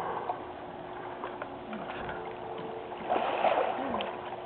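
Pool water sloshing and splashing as a person lies on a plastic spine board and starts swimming on it, with louder splashing from kicking about three seconds in. A faint steady hum runs underneath.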